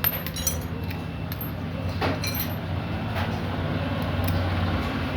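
Small metal engine parts clinking and clicking a few times as they are handled, over a steady low rumble that grows a little louder toward the end.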